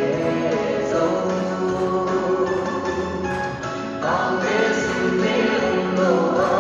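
A group of voices singing a song together to musical accompaniment, with long held, wavering notes.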